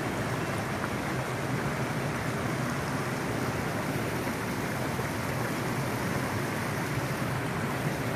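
Small mountain stream rushing over and between boulders in little cascades, a steady even rush of water.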